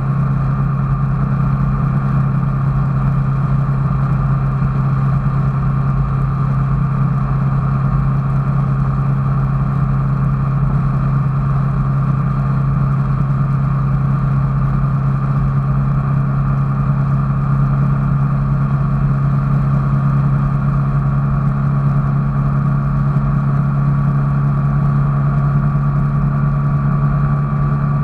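A vehicle engine running steadily: a constant low drone with a fainter steady higher whine, unchanging in pitch and level.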